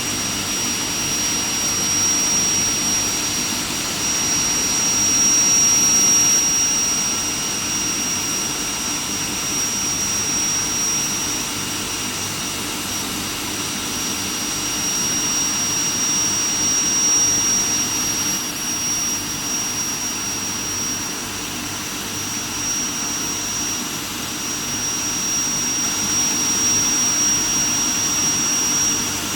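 Steel plate induction heating furnace running: a steady, piercing high-pitched whine over a constant rushing machine noise.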